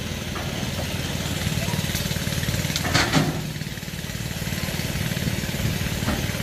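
Diesel engine of a Kubota DC70 combine harvester running steadily with a fast, even low throb. A short clatter comes about three seconds in.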